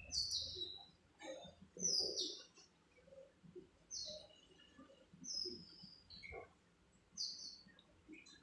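A metal spatula scraping around an iron kadhai as chopped tomatoes and onions are stirred. There are about five strokes, each with a short high squeak that falls in pitch.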